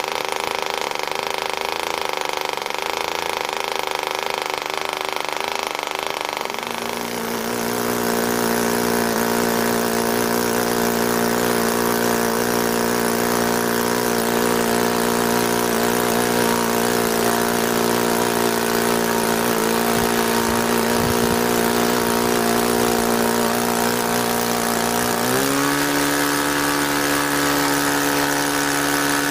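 Model aircraft engines running on a test stand with propellers: first a small single-cylinder model engine running steadily, then, after about 7 seconds, a Webra model engine running at a steady speed. About 25 seconds in the Webra speeds up in one quick step and holds the higher, steady pitch.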